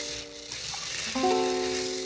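Background music: held electronic keyboard chords, one dying away about half a second in and a new chord starting just after a second in, over a steady high hiss.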